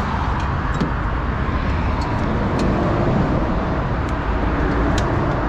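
Steady vehicle noise: a low engine drone with a wash of road traffic, swelling slightly around the middle, and a few faint clicks.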